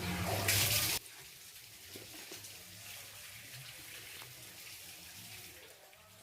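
Hissing of sweet potatoes grilling over a charcoal fire. It is loud for about the first second, then drops abruptly to a quieter, steady hiss with a few faint ticks.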